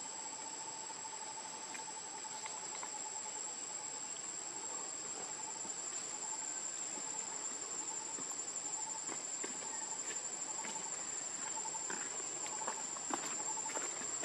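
Outdoor insect chorus: a steady high-pitched trill and a lower chirp pulsing several times a second, with a few faint clicks in the second half.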